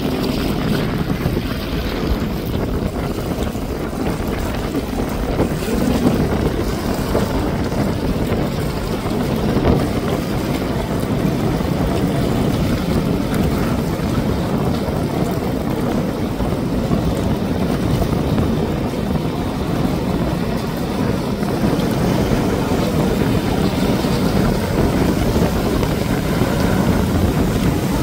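Jet skis running across open water, with a steady wind rumble on the microphone and breaking surf mixed in.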